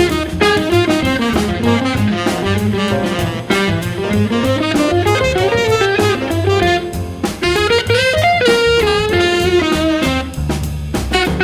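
Jazz blues with a fast improvised single-note solo line on electric guitar and saxophone, over bass and drums.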